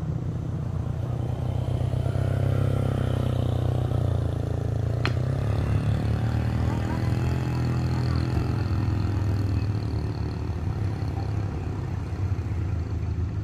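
Vehicle engines running on the climb: the steady low rumble of stopped trucks' diesels, swelling about two seconds in as a motorcycle rides past. One sharp click about five seconds in.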